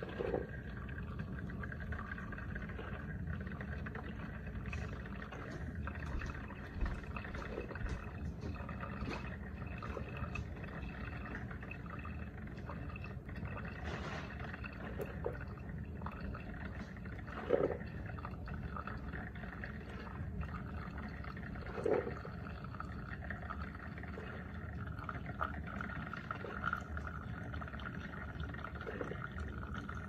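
Mr. Coffee Iced and Hot single-serve coffee maker brewing: coffee trickling and pouring into a tumbler of ice over the machine's steady hum, with a few short pops.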